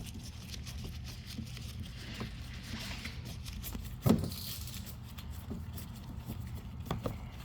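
Light clicks and taps of hands and tools handling the door's plastic trim and fasteners, with one sharper knock about four seconds in, over a steady low hum.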